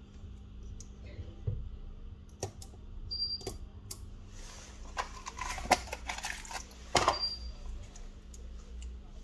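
Scattered sharp clicks, then a dense run of clicking and scraping from about four and a half to seven seconds in: small tools working on the plastic and metal parts of a Samsung Galaxy A42 5G smartphone during disassembly.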